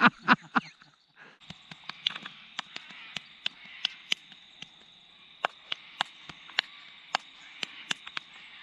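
A short burst of laughter at the start. Then a steady, high-pitched insect drone, with scattered sharp clicks sounding irregularly over it.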